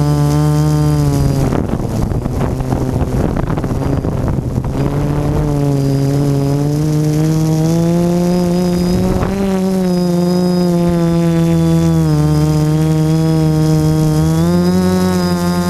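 Electric motors and propellers of a multirotor drone, heard from its onboard camera: a steady pitched hum whose pitch rises and falls several times. Wind noise rushes over it for a few seconds, starting about a second and a half in.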